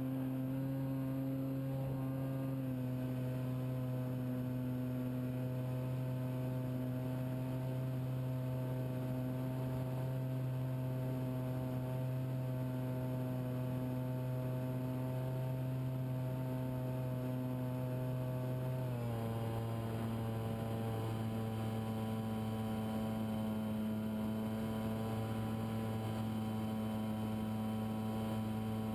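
Motor and propeller of an FPV model airplane running at steady throttle, a constant pitched drone. Its pitch drops a step about two-thirds of the way through as the throttle is eased back.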